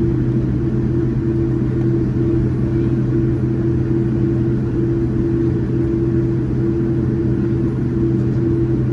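Steady engine drone of a Boeing 787-9 with GEnx engines, heard inside the passenger cabin: a constant low rumble with two steady hums, with no rise or fall in power.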